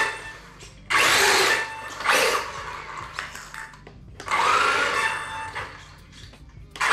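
1/16-scale brushless 4WD RC off-road truck driven on a tiled floor in short throttle bursts, its electric motor and drivetrain whining. Two short runs come about a second and two seconds in, and a longer run from about four to six seconds with the whine rising in pitch as it speeds up. The truck is on its middle, 50% power setting.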